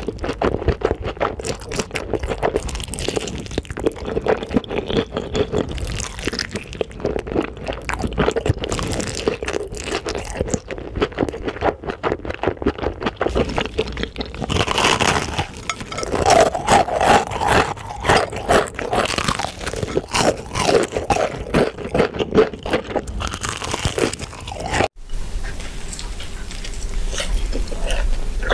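Close-miked crunching and chewing of crispy fried chicken: rapid, irregular crackles of the fried coating breaking under the teeth. About 25 s in it cuts off abruptly to softer chewing of a burger.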